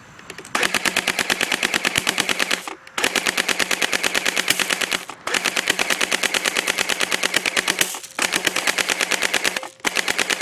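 Airsoft MP5 firing on full auto in five bursts of about two seconds each, a rapid, even rattle of shots with short pauses between bursts.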